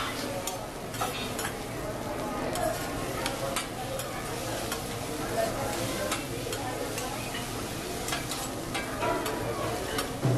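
Fried rice sizzling on a hibachi steel flat-top griddle, with irregular clicks and scrapes of the chef's metal spatulas chopping and tossing the rice against the plate.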